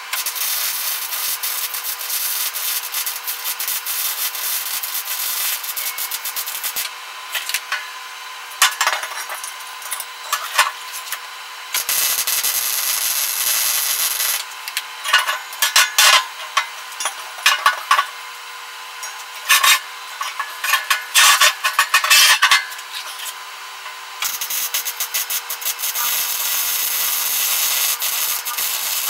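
Arc welding on steel: the arc crackles and hisses in long continuous beads and a string of short tack bursts. A faint steady hum runs underneath.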